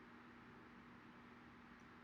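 Near silence: room tone, a faint hiss with a low steady hum.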